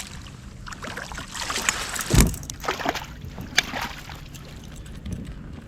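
Water splashing and sloshing against a kayak, with scattered knocks on the hull and one heavier thump about two seconds in.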